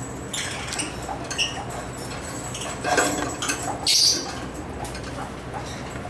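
African lovebirds giving short, high chirps, the loudest about four seconds in, with scattered clicks and a clatter about three seconds in.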